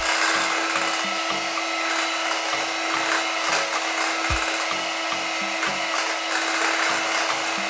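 Scarlett electric hand mixer running steadily with a constant hum, its beaters whipping cream in a glass bowl. The cream is already whipped fluffy.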